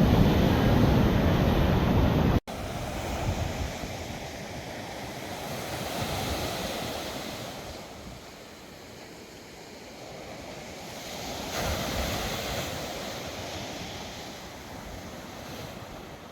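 Sea surf washing onto the shore, swelling about six seconds in and again about twelve seconds in. For the first two seconds or so, wind on the microphone adds a loud low rumble, which cuts off abruptly.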